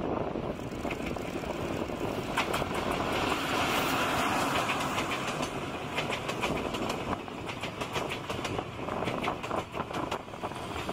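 Container freight train hauled by a stainless-steel EF81 electric locomotive rolling past close by. Its wheels give a steady rumble with rapid clicks and clacks over the rail joints, loudest around the middle as the wagons go by.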